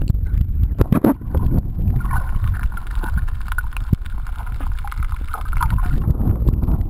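Water churning and rumbling against an underwater camera as it moves at and just below the surface, with a few splashes and knocks about a second in. A steady mid-pitched hum joins in the middle for a few seconds.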